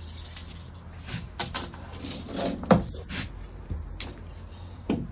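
A steel tape measure being pulled out and laid along a siding panel: scattered handling clicks and knocks, the loudest about halfway through and another near the end.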